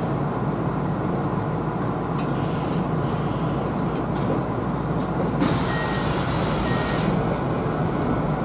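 Kintetsu Series 21 electric train standing at a station platform, its onboard equipment giving a steady hum. About five seconds in, a burst of compressed air hisses for a second and a half.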